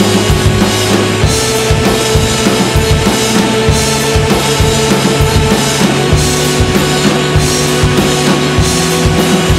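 Rock music with a fast drum-kit beat over held bass notes that change pitch a few times.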